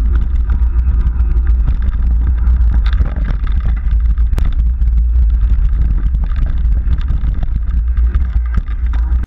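Onboard sound of a mountain bike going fast down a rough dirt trail. Wind buffets the camera's microphone in a loud low rumble, and the bike rattles and clicks over the bumps. The sound cuts off suddenly near the end.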